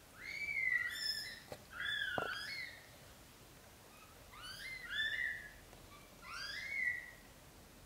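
Newborn kittens mewing: short, high squeaks that rise and fall, coming in four bouts a second or two apart.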